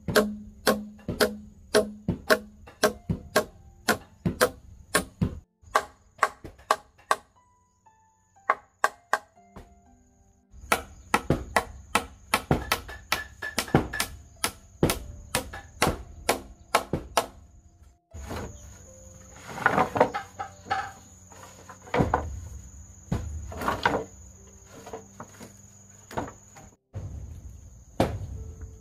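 A hammer striking nails into bamboo poles, a string of sharp blows at times two or three a second, with a steady high insect drone behind.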